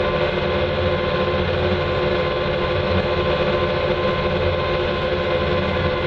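Bobcat 2410 driving at road speed, heard from inside its cab: engine and drivetrain running at a steady pitch, a constant drone with a steady whine over it.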